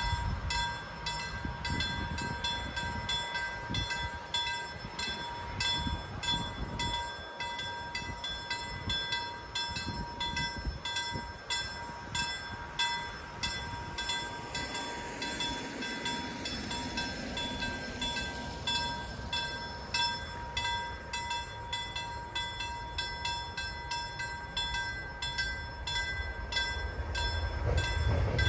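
LME KLD-4315 mechanical level-crossing bell ringing in steady, rapid, even strokes, warning that a train is due. Near the end the rumble of the approaching electric train rises beneath it.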